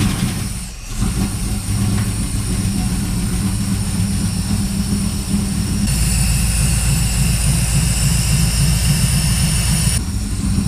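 1983 Camaro Z28's replacement 355 small-block V8 with FiTech throttle-body fuel injection, running steadily just after being started on a jump pack after years of sitting. It comes in loud right at the start, then settles into an even idle, with a high whine joining about six seconds in.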